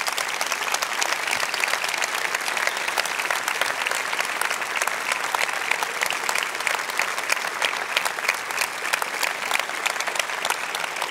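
A large audience applauding steadily, many hands clapping at once in a dense, even patter.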